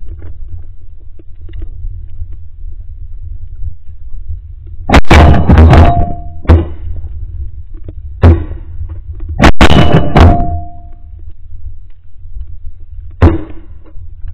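Shotgun blasts in quick volleys: a cluster of shots about five seconds in, another group around eight to ten seconds, and a single shot near the end, over a steady low rumble.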